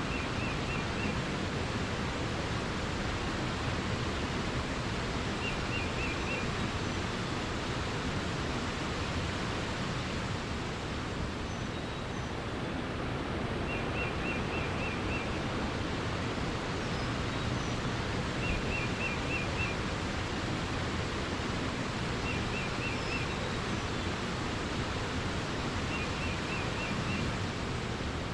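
Steady rushing water from a stream or waterfall. A bird repeats a short, quick phrase of four or five notes six times, every few seconds, with a few faint high chirps between.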